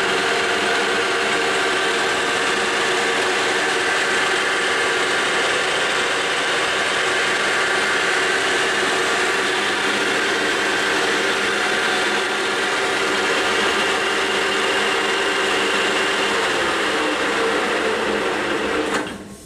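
YCI Supermax LG-1768H engine lathe running its spindle and headstock gears at 540 RPM: a steady whir with several held tones over a broad mechanical hum, dropping away shortly before the end.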